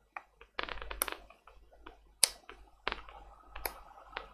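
Small sharp clicks and scraping from the parts of a tablet being pried and handled by hand during disassembly: a rough scrape about half a second in, then single clicks every half second to a second.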